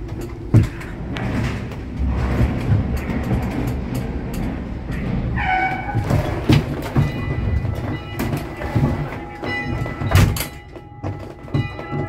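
Steel ship hulls grinding and knocking together in a collision: a low rumble with repeated thuds, a brief squeal about five seconds in, and ringing metallic tones over the second half.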